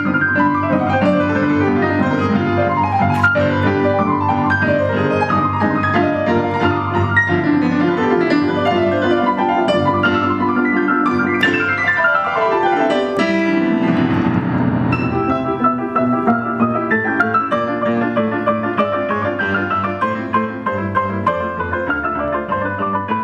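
Piano music played briskly, full of fast runs up and down the keyboard, with a sweeping run down into the bass about two-thirds of the way through.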